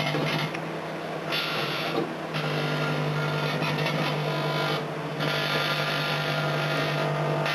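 Microwave oven running with a steady hum while car light globes inside it arc, giving a buzzing crackle that comes in spells: once about a second in and again from about five seconds in.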